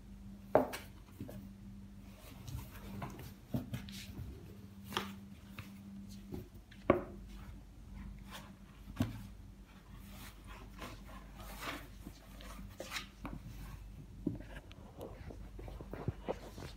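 Two cats wrestling inside a cardboard box: irregular bumps, knocks and scratches of paws and bodies against the cardboard, with two sharper knocks about half a second in and about seven seconds in.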